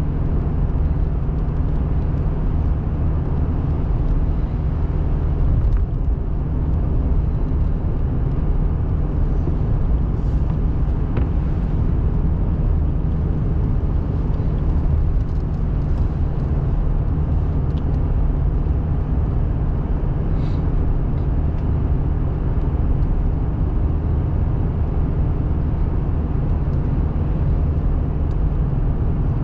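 Steady road noise of a car driving on the highway, picked up by a dashcam inside the cabin: a constant low rumble of tyres and engine, with a few faint ticks now and then.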